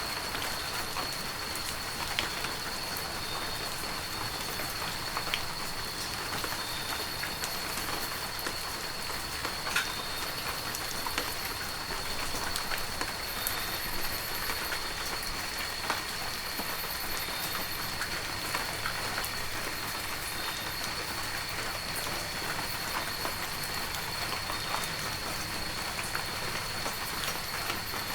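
Heavy rain falling steadily, with scattered sharp drop hits close by. A thin, steady high tone runs underneath.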